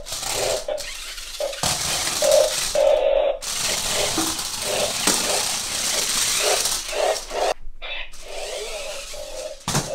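Toy stunt RC car driving in starts and stops: its small electric motors whirring while the plastic body and wheels rattle on a hard floor.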